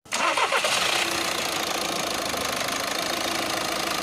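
Skoda Rapid's 1.6-litre four-cylinder diesel engine idling steadily, a little louder and rougher for about the first second.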